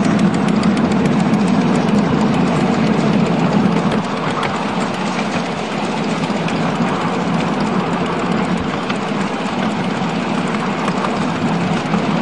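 A 7¼ inch gauge miniature steam train on the move behind a single Fairlie locomotive: a steady running rumble from the wheels and carriages on the track, with many small clicks over it. It gets slightly quieter about four seconds in.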